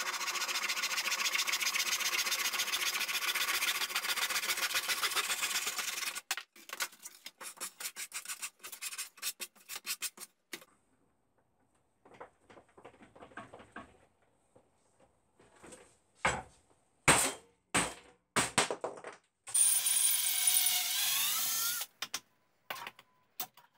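Continuous rasping of a hand tool working on softwood timber for about six seconds, followed by a run of shorter strokes and a few sharp knocks. About twenty seconds in, a cordless drill runs briefly with a rising whine.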